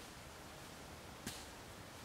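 Quiet, steady woodland background hiss, broken once by a single short, sharp click or snap a little over a second in.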